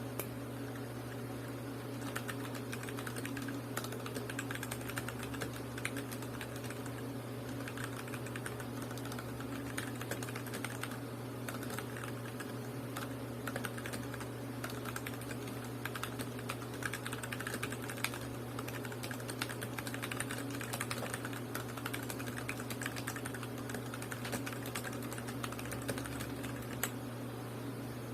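Continuous typing on a Royal Kludge RK84 mechanical keyboard with stock RK brown (tactile) switches: a fast, unbroken run of key clacks, with a steady low hum beneath.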